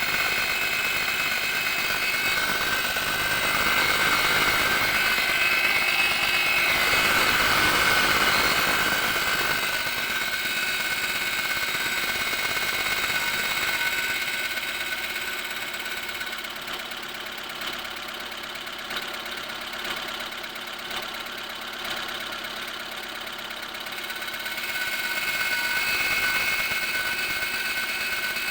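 Lada Granta idling cold with a steady high whistle and hum from the clutch while the pedal is pressed. The whistle fades for a while about halfway through and comes back near the end. The owner puts it down to a failing INA clutch release bearing, and a broken tab on that bearing was found when it was replaced.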